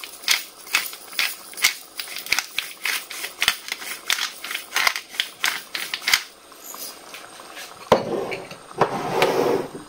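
Pepper grinder being twisted by hand: a quick run of dry clicks, about two or three a second, for some six seconds. About eight seconds in there is a sharp knock, then a brief rushing noise.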